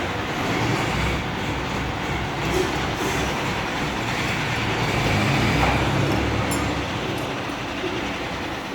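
Chicago Pneumatic PX 40 air compressor running: a steady, noisy rumble that eases off a little near the end.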